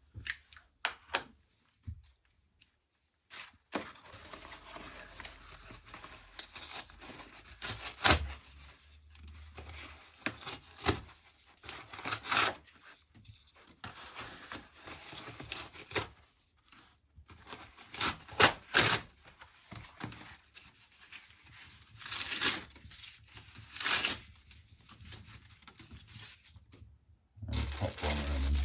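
Paper being torn and crumpled by hand in irregular bursts, laid ready to start a fire.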